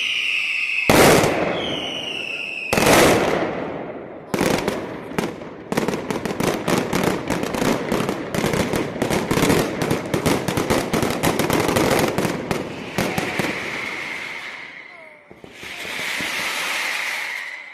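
Mascletà firecrackers: a shrill whistling, then two heavy bangs, then a rapid, dense string of crackling bangs that thins out after about ten seconds, with whistling again near the end.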